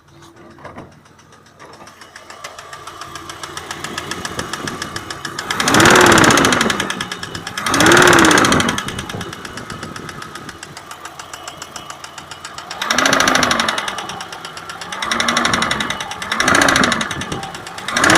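BMW M20 straight-six engine, hot, idling and blipped up and back down six times, with a knock that comes only when the engine is hot and whose cause the owner can't pin down.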